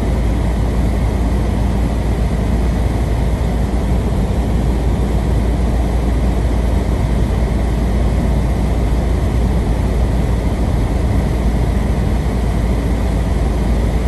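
Steady road and wind noise inside a car's cabin, with a heavy low rumble, driving slowly (about 40–50 km/h) on a snow-covered road in strong wind.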